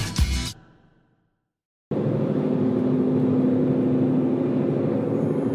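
The tail of a music track fades out, followed by a second of silence. Then the steady road and engine noise of a VW California camper van driving on a motorway cuts in abruptly, with a constant low drone.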